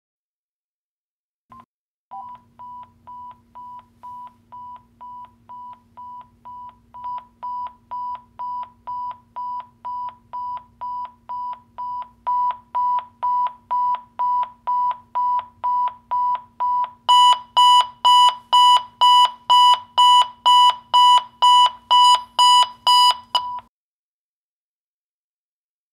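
Vertex Standard EVX-539 two-way radio sounding an escalating call alert: short high beeps, about two a second, that grow louder in several steps. The alert cuts off abruptly near the end as the callback is answered.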